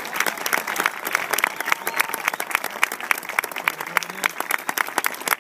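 Crowd in stadium stands applauding, with sharp individual claps from people close by standing out above the general clapping.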